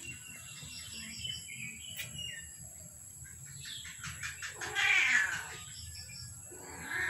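A kitten meows twice, each call under a second long with a wavering pitch, about five seconds in and again near the end.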